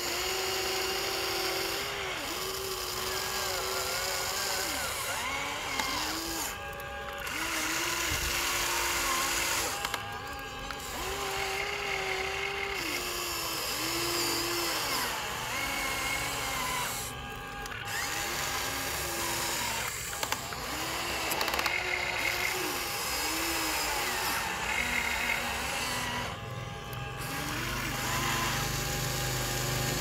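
Small electric motors of remote-control toy vehicles whining in short runs, the pitch rising as each run starts and falling as it stops, over background music.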